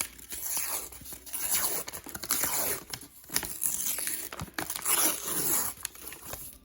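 Packaging being torn and crinkled by hand: a series of short tearing strokes one after another.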